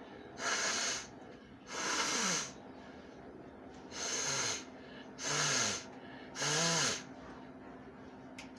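A woman blowing her nose forcefully five times, each a hissing blast of breath about half a second long with a slight voiced tone, a little over a second apart.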